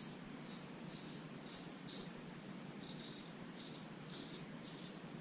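Shaving brush being worked over the face to build a lather, the wet bristles and soap making a rhythmic scrubbing hiss about two strokes a second, with a brief pause about halfway through.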